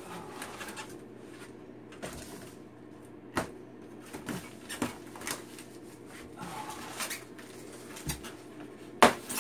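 A large cardboard shipping box being handled: scattered taps, scrapes and rustles of cardboard, with a dull thud and then a louder sharp knock near the end.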